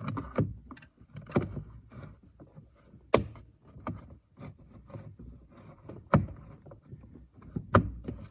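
Hard plastic steering-column trim being handled and pressed into place: irregular knocks and clacks with lighter rustling, the sharpest knocks about three seconds in, about six seconds in and near the end.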